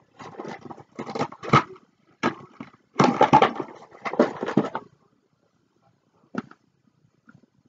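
Rustling and knocking of craft supplies being handled in irregular bursts for about five seconds, then one short click as a glue stick is pushed into a hot glue gun.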